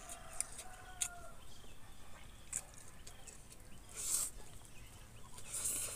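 Mouth noises of eating rice by hand: scattered lip-smack clicks and chewing, with a short slurp as a handful goes into the mouth about four seconds in and again near the end. A faint, drawn-out animal call sounds in the background during the first second or so.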